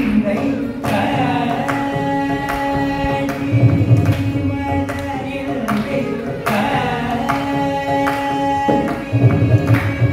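Two male voices singing Carnatic vocal music together, holding long sustained notes, with percussion strokes accompanying them.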